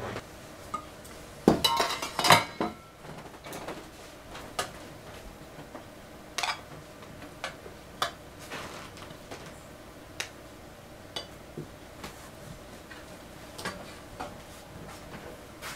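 Metal kitchenware and bowls clinking and knocking as they are handled on a stainless-steel counter. A quick cluster of loud clatters comes about one and a half seconds in, followed by scattered single clinks about once a second.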